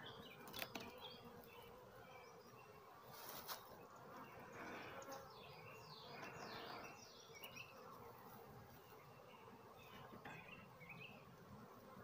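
Faint, steady buzzing of honeybees from an open hive full of bees, with birds chirping through the middle and a few light clicks.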